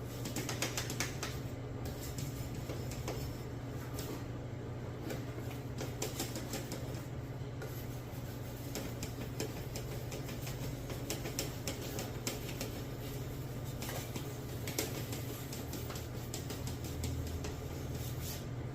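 A machete blade being sharpened: irregular scraping strokes of steel against an abrasive, with a steady low hum underneath.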